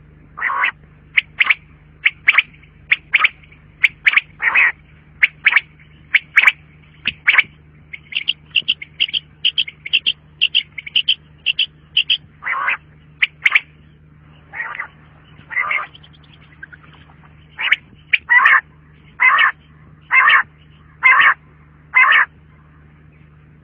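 Common quail calling: a long series of short, sharp call notes at irregular spacing, with a quick, evenly spaced run of notes in the middle. A faint steady low hum lies beneath.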